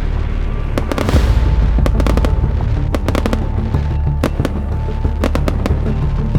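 Fireworks going off: many sharp bangs and pops at irregular times over music with a deep steady bass.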